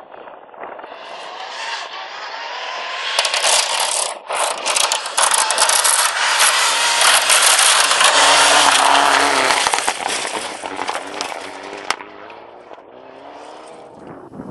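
Mitsubishi Lancer Evolution rally car on a gravel stage, its turbocharged four-cylinder engine note rising and falling as it comes up and passes close, with gravel spraying and scraping under the tyres. It is loudest at the pass, about eight seconds in, then fades and cuts off suddenly near the end.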